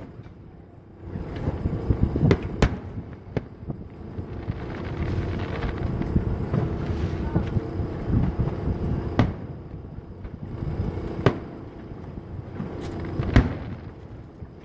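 Aerial firework shells bursting: a string of sharp bangs at irregular intervals a few seconds apart, the strongest about two seconds in, around nine and eleven seconds in, and near the end.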